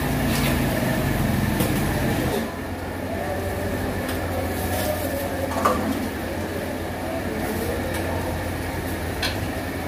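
A steady low hum and rumble of the food shop, with a few sharp metal clinks of a steel ladle against steel cooking pots, one plainest a little past halfway.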